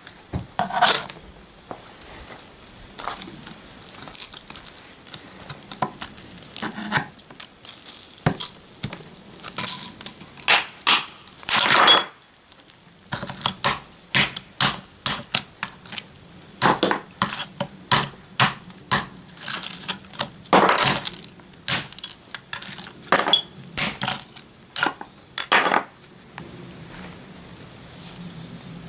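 Metal pliers clinking and scraping against ceramic tiles and charred, melted plastic, with tile pieces knocking together as the debris is picked apart; irregular sharp clinks, stopping about three seconds before the end.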